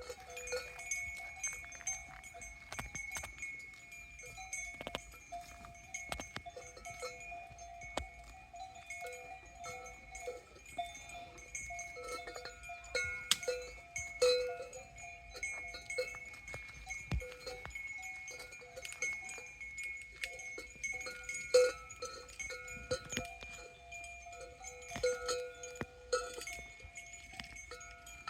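Several cow bells of different pitch clanking irregularly, short metallic rings overlapping on and off.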